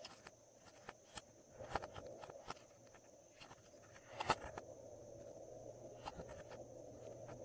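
Glossy slime being handled and squeezed: scattered soft sticky clicks and little pops, the loudest a little after four seconds in, over a faint steady background hum.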